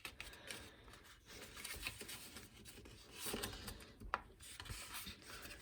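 Faint rustling and creasing of a sheet of origami paper being folded and pressed flat, with a short sharp crinkle about four seconds in.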